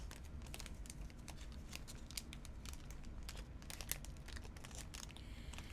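Trading cards and their plastic packs being handled: faint crinkling with many small clicks and rustles.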